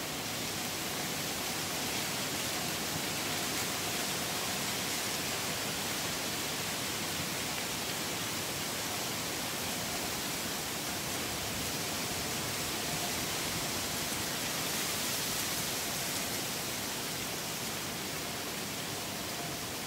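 Steady, even rushing noise like a hiss, with a faint steady tone beneath it.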